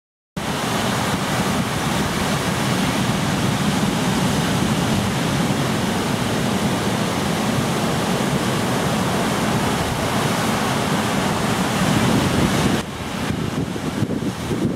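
Steady rush of breaking ocean surf with wind buffeting the microphone, starting abruptly about half a second in and dipping slightly near the end.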